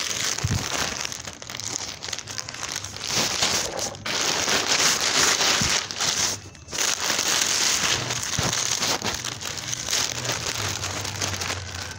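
A parcel's packaging being torn open and crumpled by hand: continuous rustling, with a brief pause about halfway through.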